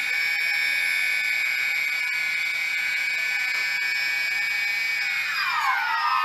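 X380 quadcopter drone's motors whining at a steady high pitch, then sliding down in pitch about five and a half seconds in as they slow. This is the noise its owner calls strange.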